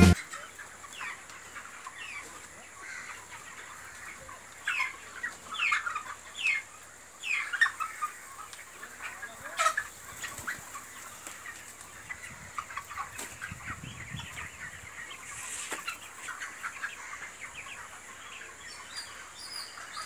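A flock of month-old broiler chickens in a poultry shed, many birds calling at once with short, falling peeps and clucks. The calling is busiest in the first half.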